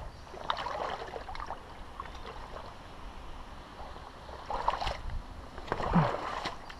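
Scuffs and rustles of a person moving over creek-side rocks and grass, in three short flurries: about half a second in, near the middle-to-late part, and the loudest toward the end.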